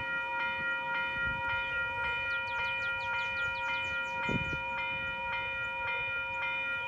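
Railway level-crossing warning bell ringing steadily, struck about twice a second, signalling an approaching train. Around the middle a bird gives a quick run of high, falling chirps, and there is a brief low thump a little after four seconds in.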